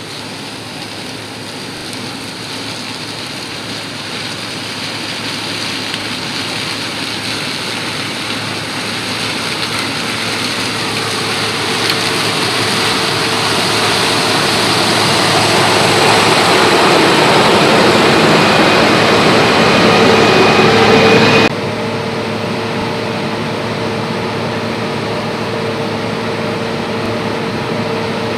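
Claas Lexion 480 combine harvester with a sunflower header running as it harvests, growing steadily louder as it comes closer. About three-quarters of the way through the sound cuts suddenly to a steadier, quieter running with a steady hum as the combine unloads grain through its auger into a trailer.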